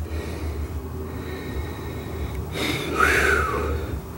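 A person breathing close to the microphone, with a short, louder breath about three seconds in, over a low steady hum.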